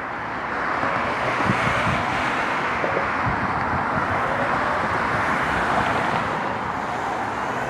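Road traffic going by, a steady rush of engine and tyre noise that swells about a second in, with a siren faintly rising and falling in the distance.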